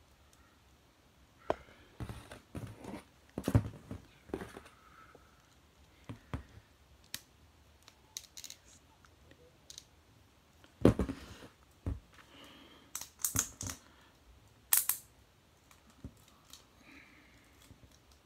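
2002 Mattel He-Man and Skeletor plastic action figures and their plastic sword and battle axe clicking and clacking as they are handled and knocked together on a tabletop. The clicks and knocks come irregularly, a few at a time.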